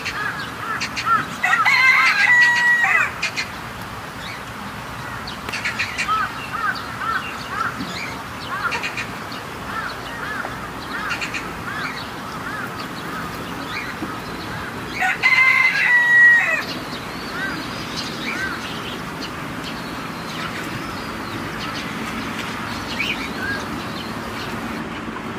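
A rooster crows twice, once about a second and a half in and again about fifteen seconds in. Short clucking and chirping calls from other penned poultry carry on between the crows.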